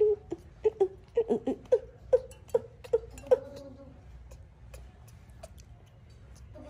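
Baby monkey whimpering: about eight short falling squeaky calls in quick succession, fading out after about three and a half seconds into faint clicks.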